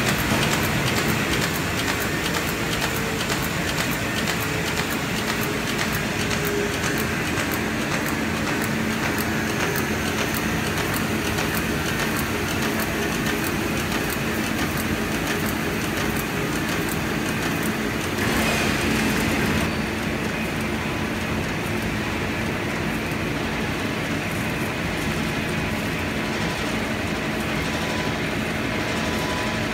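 Sawmill machinery running: a steady mechanical noise with a low hum, swelling briefly about two-thirds of the way through.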